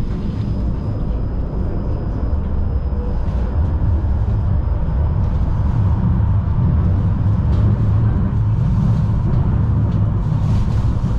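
Tram running along the track, heard from inside the car at its rear window: a steady, loud low rumble of wheels on rails. A faint high whine runs alongside it and stops about seven seconds in.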